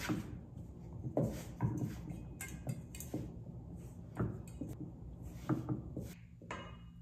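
Wooden spoon stirring sticky no-knead bread dough in a stainless steel mixing bowl: irregular scrapes and knocks of the spoon against the bowl, one or two a second.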